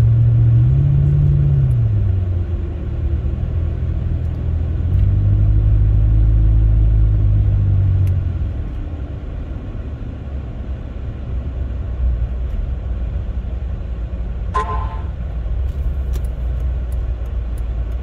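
Chrysler 300C's Hemi V8 running under way on a snowy road, heard from inside the cabin with a steady rumble of tyres and road. The engine note rises briefly about a second in, holds strong, then eases off after about eight seconds into a lower rumble. A short pitched beep sounds about fourteen and a half seconds in.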